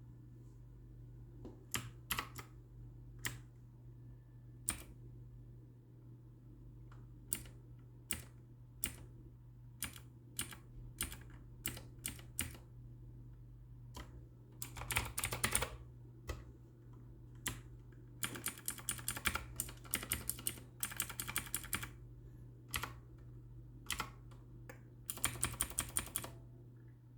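Keys of a Havit Gamenote mechanical gaming keyboard being pressed: single keystrokes a second or so apart at first, then several bursts of rapid typing in the second half.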